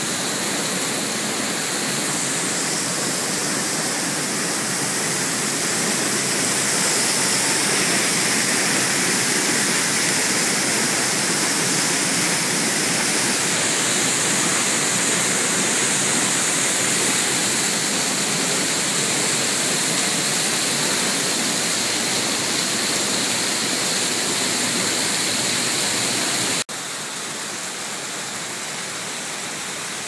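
Waterfall crashing down close by, a steady, dense rush of falling water. About 27 s in it cuts suddenly to a quieter, softer water sound from a small cascade.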